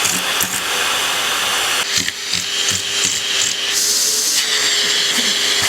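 Vacuum cleaner running with a steady hiss and hum, its tone changing about two seconds in and again around four seconds.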